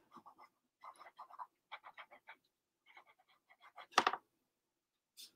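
Pencil scratching on sketchbook paper in a run of short, quick strokes, faint, with one sharper click about four seconds in.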